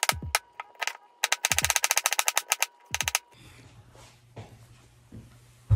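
Rapid knife chops on a cutting board, many sharp taps in quick runs, with background music with a deep beat. The music and chopping stop about three seconds in, leaving a low steady hum and one thump near the end.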